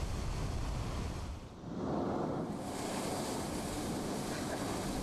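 Sea surf breaking against a rocky shore, with wind buffeting the microphone. About a second and a half in, the sound drops briefly and gives way to a steady rushing of spray from a sea blowhole jetting up through the rock.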